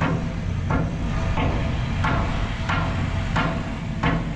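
Steady, evenly spaced hammer blows, about three every two seconds, over a continuous low machine hum.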